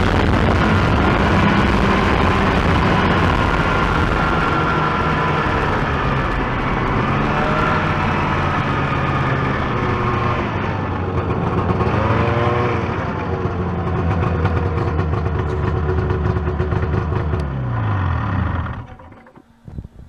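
Arctic Cat Jag snowmobile's two-stroke engine running while riding, its pitch rising and falling with the throttle. Near the end it winds down and goes quiet.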